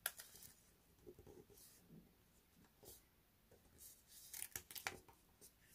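Faint rustles and crisp crackles of a sheet of colour paper being folded and pressed flat by fingertips, with a sharp one at the very start and a busy cluster between about four and five seconds in.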